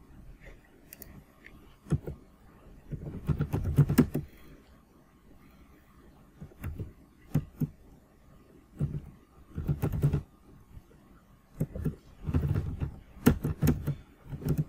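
Typing on a computer keyboard in several short bursts of keystrokes, with brief pauses between them.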